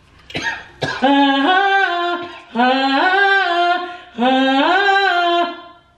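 A woman singing a wordless tune in three phrases, each climbing in steps and then held, with a couple of coughs just before the first phrase.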